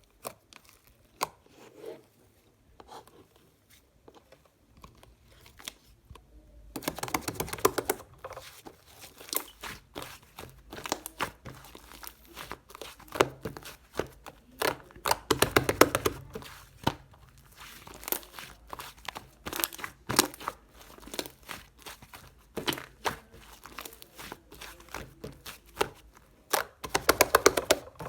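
White slime being squished and stretched by hand, giving scattered sharp popping clicks and, three times, dense runs of rapid crackling pops.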